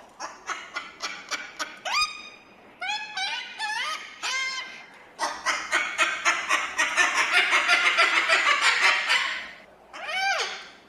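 Cockatoo calling: a string of short squawks, then a long run of rapid chattering from about five to nine seconds in, and a downward-sliding squawk near the end.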